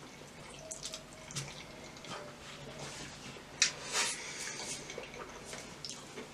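Mouth sounds of eating creamy pasta: wet chewing and slurping, with a few short sharp clicks, the sharpest about three and a half and four seconds in.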